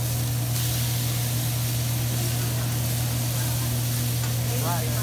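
Chicken and shrimp sizzling on a hot hibachi griddle, a steady hiss that grows a little stronger about half a second in, over a constant low hum.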